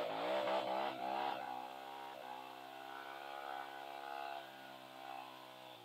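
Dirt bike engine revving unevenly, then running at a steady pitch and fading away near the end.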